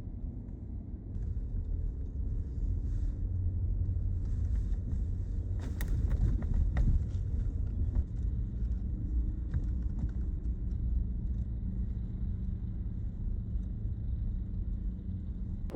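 Road vehicle traffic running, a low steady rumble, with a few sharp clicks about six to ten seconds in.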